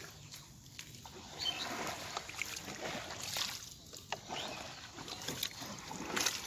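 Shallow muddy water sloshing and splashing as hands and a plastic bottle work in it, in uneven swells with small clicks.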